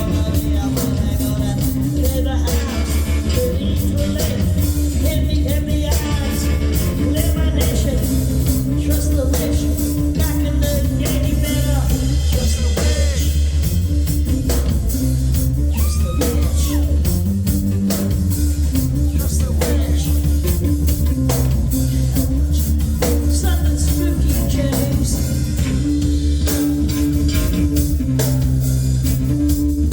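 Live rock band playing a song with singing, electric guitar, heavy bass and a steady drum beat.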